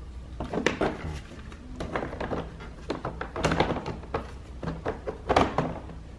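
Hand tools and hands on a plastic door-panel window-switch assembly: an irregular series of clicks and knocks as the last screw on its back is taken out.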